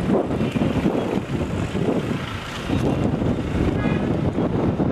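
Steady low rumbling background noise, with a brief high-pitched call about four seconds in.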